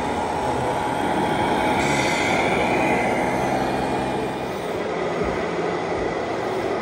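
Scale RC truck sound modules playing diesel truck engine sounds over the steady hubbub of a large hall, with a brief hiss about two seconds in.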